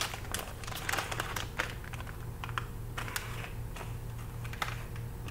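Trading-card pack being opened by hand: its wrapper crinkles and crackles in small irregular clicks.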